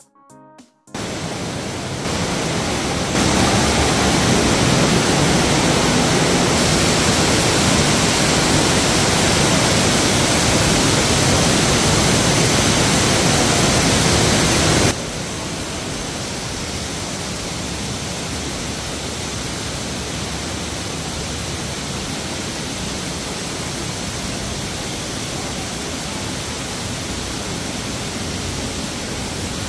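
Niagara Cave's 62-foot underground waterfall pouring down a rock chute in the cave: a loud, steady rush of water. It starts about a second in, grows louder twice over the next couple of seconds, then drops abruptly about halfway through and carries on steady and somewhat quieter.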